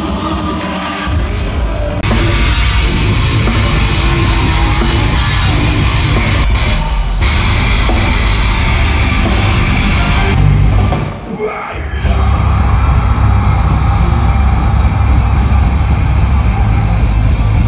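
Live heavy metal band playing loud through a festival PA, with distorted guitar, heavy drums and shouted vocals. The sound briefly thins out about eleven seconds in, then comes back at full volume.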